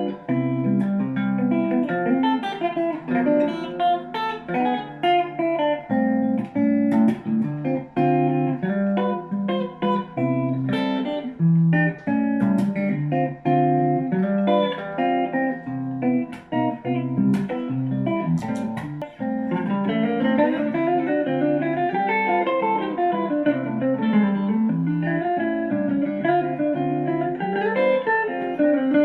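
Electric guitar played through an amplifier: picked single notes and chords, then, about two-thirds of the way in, held notes sliding smoothly up and down in pitch.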